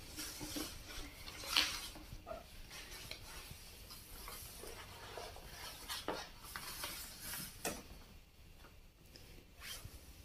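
A large rolled sheet of chart paper rustling as it is unrolled and smoothed flat on a glass tabletop, with scattered light knocks and taps against the glass.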